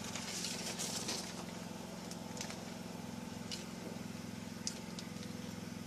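A steady low mechanical hum, with a few faint, light rustles and ticks from a paper pattern being handled on cut fabric.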